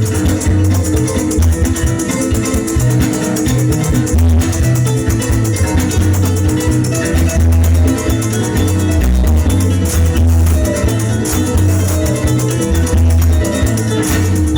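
Joropo music played by a llanero ensemble: harp and cuatro plucked over steadily shaken maracas, with a heavy bass line.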